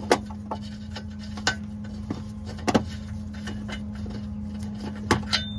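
Irregular metallic clicks and ticks as the downstream O2 sensor is turned out of its threaded bung in the exhaust pipe by hand, over a steady low hum.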